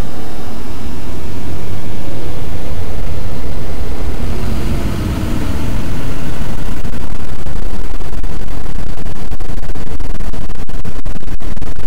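Electronic noise music: red noise resynthesized on a computer from a half-second tone-generator sample, playing loud and dense with most of its weight in the deep bass. It dips briefly about five seconds in, then comes back with a fast grainy flutter and a few brief dropouts near the end.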